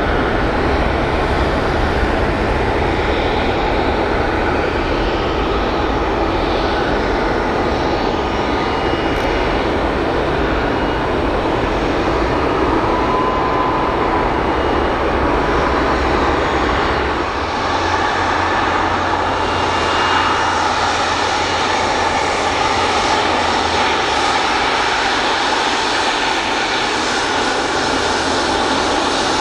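Airliner engines running loud and steady. About two-thirds of the way through, the deep rumble thins out and a brighter hiss takes over.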